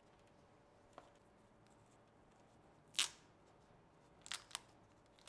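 Thin plastic protective sleeve around a new phone crinkling as gloved hands pick it up and handle it: a soft tick about a second in, a sharp crinkle around the middle, and two more in quick succession near the end.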